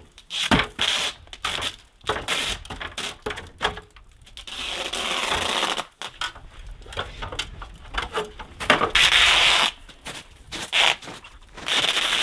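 Housewrap seam tape being unrolled and rubbed down onto Tyvek HomeWrap by hand: scraping and rustling with scattered taps, and longer rasping stretches about four seconds in, around nine seconds in, and near the end.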